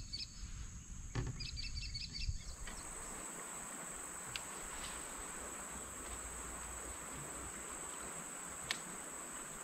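Outdoor riverside ambience: a steady high-pitched insect drone throughout, with a bird chirping in quick repeated series for the first couple of seconds. About 2.5 s in the sound changes to an even hiss under the insect drone, with a couple of faint ticks.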